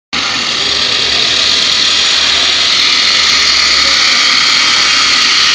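CNC wood router with a saw-blade attachment running at speed: a loud, steady, high rushing noise with faint steady tones in it, rising slightly over the first second.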